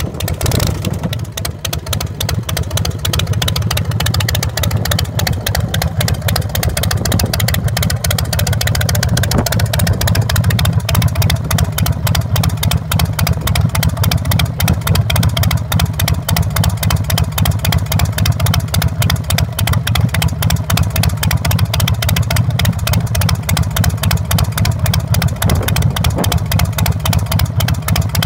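A carbureted 117 cubic inch (1,916 cc) S&S V-twin on a 2005 Big Dog chopper idles moments after being fired up, running through a Paul Yaffe 2-into-1 SuperTrapp exhaust. The idle is steady and grows a little louder about ten seconds in.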